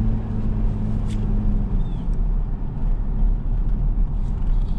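Car engine and tyre road noise heard from inside the cab while driving slowly down a street. The engine note eases off and drops slightly in pitch over the first couple of seconds as the car coasts.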